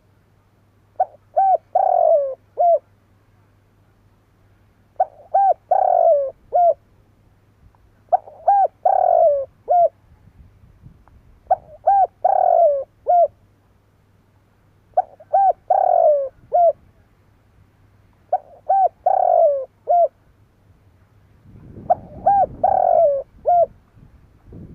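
Spotted dove singing: a cooing phrase of a few short notes around one longer, louder coo, repeated seven times about every three and a half seconds.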